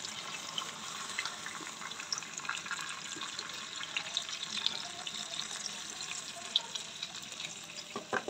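Milk being poured into a pan of cooked mutton: a steady stream of pouring liquid with small crackles.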